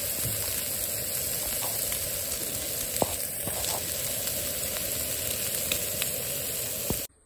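Bacon and sausages sizzling steadily on the hot griddle plate of a Campingaz Party Grill gas stove, with a few small crackles of spitting fat; the sound cuts off abruptly near the end.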